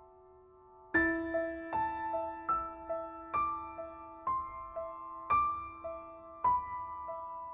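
Background music: a slow, gentle piano melody. After a fading chord, single notes are struck about twice a second from about a second in, over a held low note.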